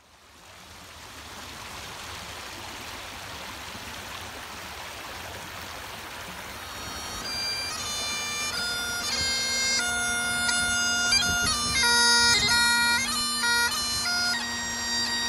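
A steady rushing noise fades in, then about seven seconds in a Great Highland bagpipe starts up: a steady drone with the chanter playing a tune in quick-changing notes, growing louder toward the end.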